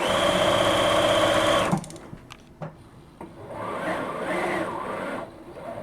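Bernina sewing machine running at speed for about two seconds, stopping, then running again more quietly for about two seconds.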